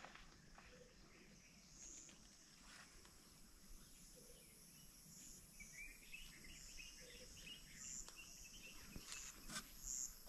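Faint outdoor ambience of insects and birds: a steady high insect drone with short chirps every second or two, and a brief run of bird chirps in the middle.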